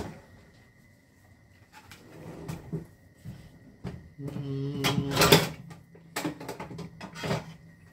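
Wooden chopsticks set down on a plastic cutting board with a sharp click, then scattered kitchen knocks and clatter, the loudest about five seconds in.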